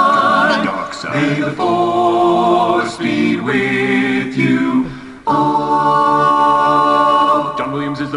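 Several male voices singing a cappella in layered harmony, playing from a computer, with a brief break about five seconds in before the next phrase.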